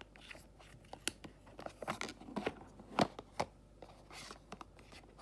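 Irregular plastic clicks and taps of a spare Insta360 X3 battery being handled and lifted out of its hard plastic battery case, the sharpest click about three seconds in.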